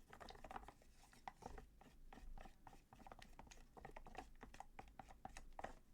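Faint, irregular scratching and clicking of wet plaster being stirred in a mixing container as paint is worked into it.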